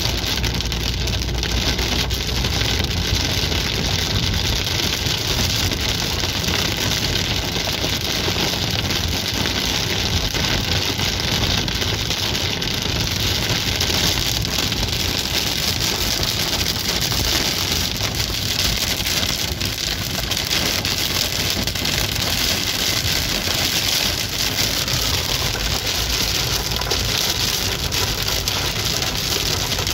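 Heavy rain drumming steadily on a car's windshield and body, heard from inside the moving car, with the car's road noise underneath.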